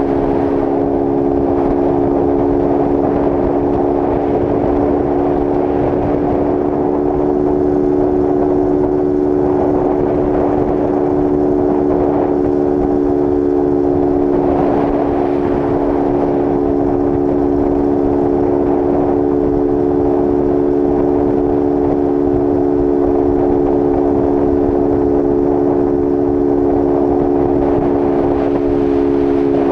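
Honda CG Start 160's single-cylinder four-stroke engine running at a steady high speed at highway cruising pace, with its air filter removed, under a rush of wind noise. The engine note holds constant throughout.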